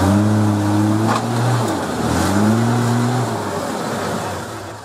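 Toyota 80 Series LandCruiser engine revving as the truck climbs a rocky track, the revs rising and falling twice, then easing off near the end.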